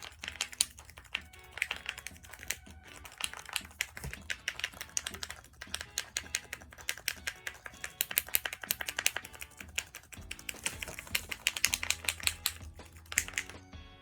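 A small toy container being shaken hard, its contents rattling in rapid clicks. Background music comes in about ten seconds in.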